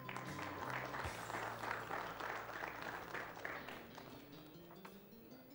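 Audience applauding, dying away after about four seconds, over soft background music.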